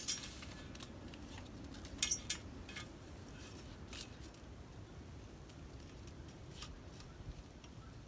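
A few light metallic clicks and taps from a tape measure being handled against a square steel tube, the loudest a pair of sharp clicks about two seconds in, over a steady low background rumble.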